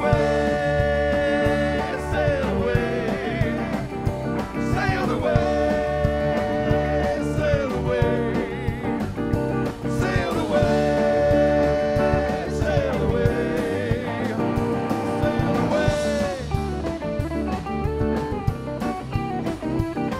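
Live electric blues band playing an instrumental break: electric guitars, bass and drums, with harmonica in the band, and long held lead notes that bend down and return about every five seconds.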